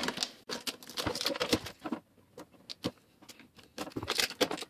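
Clear hard-plastic packaging being handled and pried open: irregular clicks and crackles, thinning to a few isolated clicks midway before picking up again near the end.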